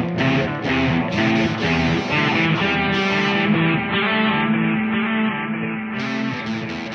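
Guitar music: electric guitar strumming chords in a steady rhythm, with a held low note in the middle.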